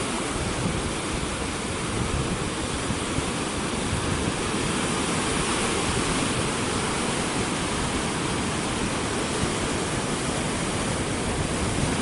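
Rough sea surf breaking and washing over black lava rocks: a steady, unbroken rush of white water.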